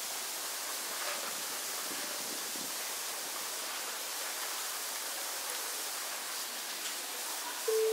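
Steady, even hiss of background noise with no distinct events; near the end a sustained musical tone begins.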